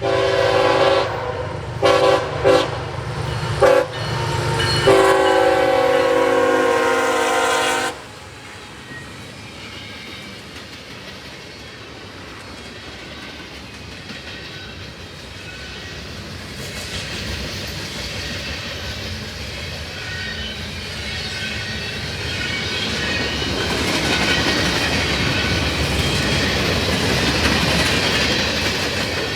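Freight locomotive air horn sounding a multi-note chord: an opening blast, three quick short toots, then a long blast that cuts off sharply about eight seconds in. After that, the steady rumble and clickety-clack of a long freight train's cars rolling past, growing louder near the end.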